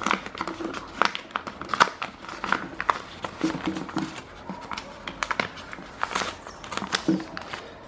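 Paper envelope being opened by hand: irregular crinkling and rustling of paper with scattered sharp crackles.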